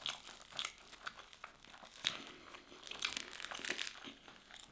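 Close-up chewing of a mouthful of wood-fired meat pizza: irregular crunchy clicks and crackles, busiest in the second half.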